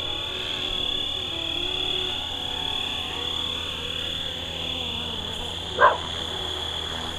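Fly Wing FW450L electric RC helicopter hovering on GPS position hold, its motor and rotors giving a steady high-pitched whine. A single short, loud bark-like sound about six seconds in.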